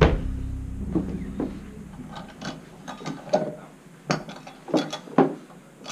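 Steel grip anvil loaded with weight plates clanking as it drops and tips onto its plates after a failed lift, followed by a series of light metal clinks as the loaded implement is set up and gripped again.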